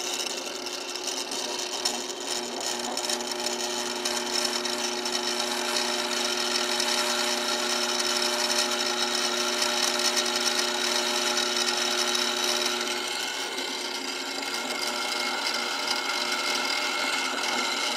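Drill press running, a small twist bit cutting a pilot hole through a steel plate: a steady motor hum with the bit grinding in the metal. The sound changes about thirteen seconds in.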